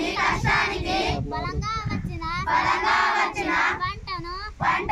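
A crowd of adults and children chanting in unison, with a single voice alternating with loud responses from the whole group.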